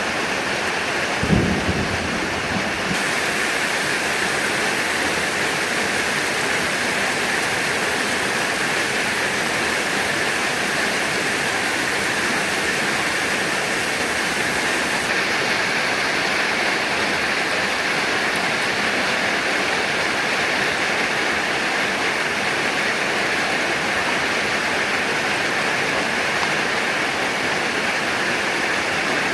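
Heavy rain falling steadily, a dense even hiss, with one short low rumble of thunder about a second in.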